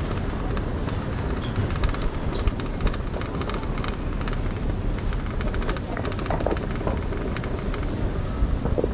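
City traffic and road noise from a car driving through town: a steady low rumble with scattered clicks and knocks.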